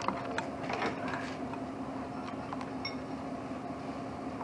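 A few light metallic clicks and clinks in the first second or so, from a wrench working the lock nut on a Camso X4S track's angle-of-attack adjustment rod, over a steady low hum.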